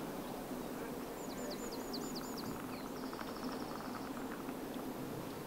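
A small bird singing: a quick run of about seven high repeated notes a second or so in, ending in a short buzzy trill, over steady outdoor background noise.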